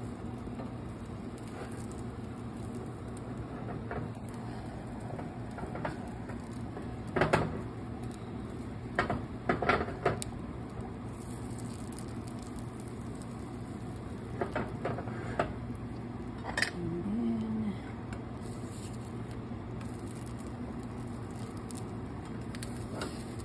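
Black slotted spatula scraping and tapping against a nonstick frying pan as it works the edges of a setting omelette, in a few short clusters of sharp scrapes and knocks. A steady low hum runs underneath.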